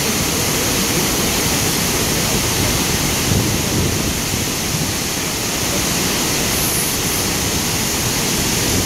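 The Devil's Throat waterfall at Iguazu Falls: a steady, deep rush of a huge volume of water plunging over the rim into the gorge.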